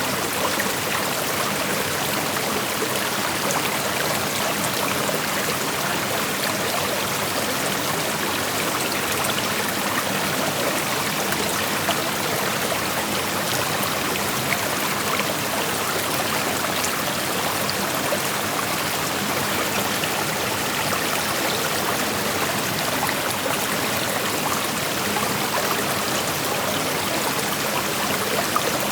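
Creek water flowing and rushing steadily over rocks, an even splashing hiss that doesn't change.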